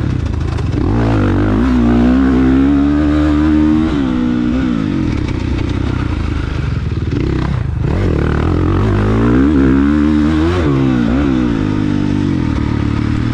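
A 450cc motocross bike's engine being ridden hard, revving up and backing off again and again as it goes through turns, its pitch climbing and dropping every second or two.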